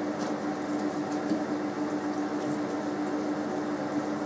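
Kitchen tap running steadily, a thin stream splashing into the sink, with a steady hum underneath. A few faint clicks and rustles come from a red onion being peeled by hand.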